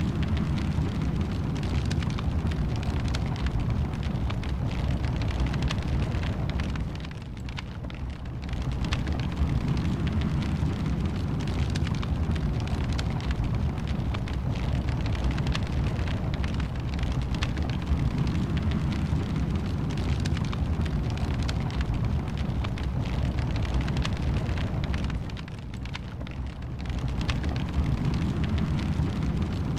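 Wood fire in a fireplace crackling and popping over a steady low rumble of flames. It drops quieter twice for about a second, a quarter of the way in and near the end.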